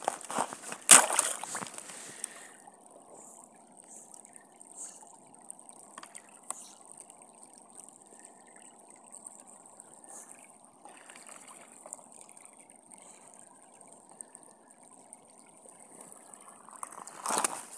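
Shallow river water trickling steadily over a pebbly bed. A few loud knocks and rustles in the first two seconds and again near the end.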